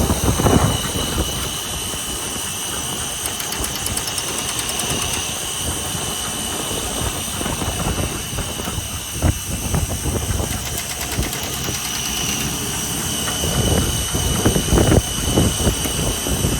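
Woodworking oscillating drill-mortiser running: a steady high motor whine over an uneven low rumble, with a sharp knock about nine seconds in and heavier, louder working noise near the end.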